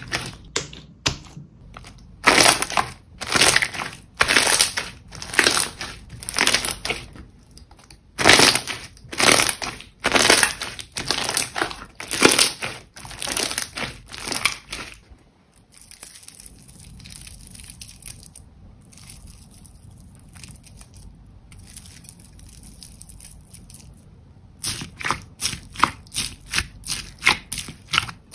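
Jelly slime squeezed and pressed by hand: short squishes about one a second, a quiet stretch of faint hiss in the middle, then quicker squishes near the end.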